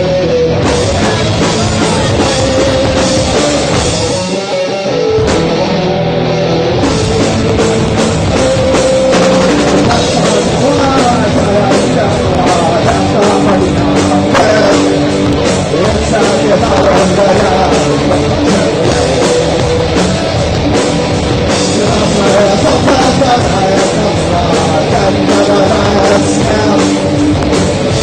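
Rock band playing loudly, with a drum kit driving it, briefly thinning about four seconds in.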